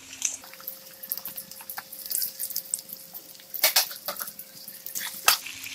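Cubed potatoes frying in hot oil in a kadai, just after going in: a soft sizzle with scattered small crackles and pops, and two sharper pops in the second half.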